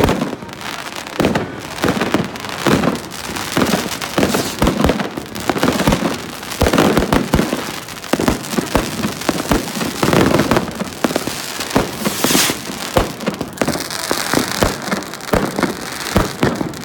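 Dense fireworks display: many overlapping bangs and crackles of rockets and shells bursting overhead, with no let-up. In the last few seconds a steadier high hiss runs under the bangs.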